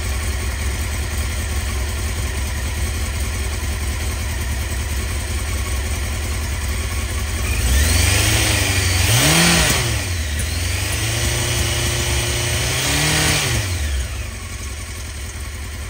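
Honda CBR900RR Fireblade's inline-four engine idling, then revved up sharply about eight seconds in, held at raised revs, revved again near thirteen seconds and let fall back toward idle. The engine is being run up toward 5,000 rpm for a dynamic AC voltage test of the stator's output.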